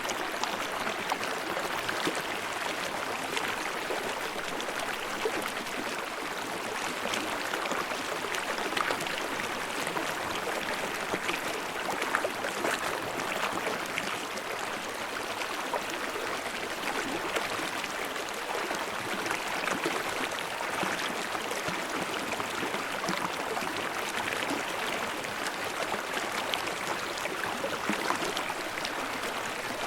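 Stream water babbling steadily.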